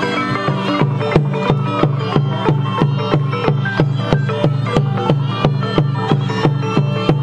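Cambodian pinpeat ensemble music accompanying a sbek thom shadow puppet play: drums and struck percussion keep an even beat about three times a second under a busy pitched melody.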